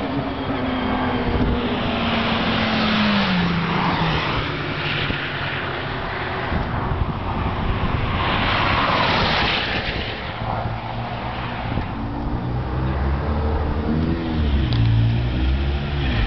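Cars passing at speed on a race track, twice swelling into a rush of engine and tyre noise, with one engine note falling in pitch as a car goes by early on. Near the end a car's engine runs close by, its revs rising and falling.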